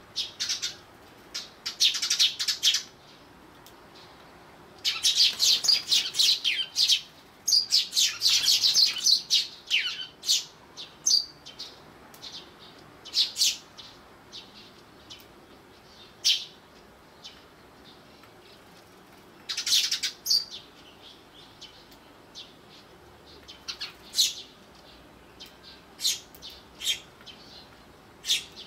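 Eurasian tree sparrows chirping: quick flurries of short, high chirps, densest in the first ten seconds and again about twenty seconds in, with single chirps scattered between.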